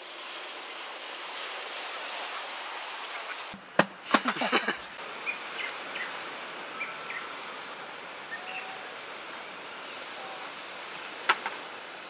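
Log fire burning in a steel fire pit, with a few sharp pops and cracks about four seconds in and once more near the end, over a steady outdoor hiss and faint short bird chirps.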